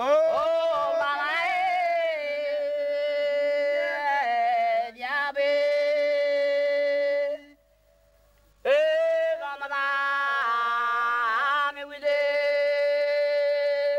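Unaccompanied singing in two long phrases with a short break about seven and a half seconds in. Each phrase opens with a rising slide onto a long held note, with a wavering passage in the middle of each.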